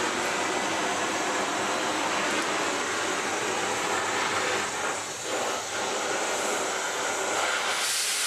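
Angle grinder grinding rusty steel: a steady, harsh grinding noise that eases off briefly twice a little after five seconds as the disc is lifted, then carries on.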